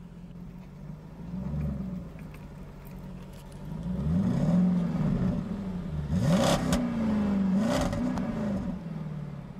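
A motor revving, its pitch rising and falling several times and getting louder in the second half, with two brief hissing bursts over it.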